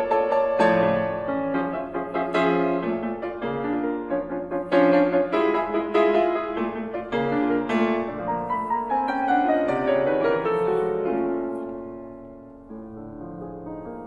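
Solo grand piano playing contemporary classical music: struck chords and notes, with lines of notes sweeping up and down near the middle. It fades almost away about twelve seconds in, then quieter notes come back in.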